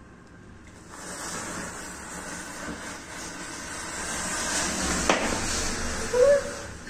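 Bundles of matchsticks flaring up all at once, a hiss of burning match heads that starts about a second in and grows louder. About five seconds in there is one sharp crack, and just after six seconds a short high-pitched squeal, the loudest sound.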